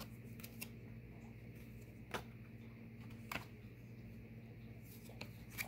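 Tarot cards being handled: a handful of light, sharp clicks and flicks scattered across a few seconds, over a faint steady low hum.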